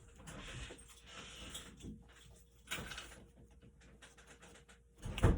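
Tarot cards being shuffled and handled in a few short rustling passes, with a sharp thump about five seconds in, as of the deck being set or knocked down on the table.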